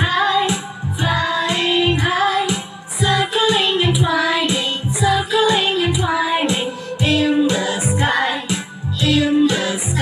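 A nursery rhyme song about aeroplanes: singing voices carrying a melody over a musical backing with a steady beat.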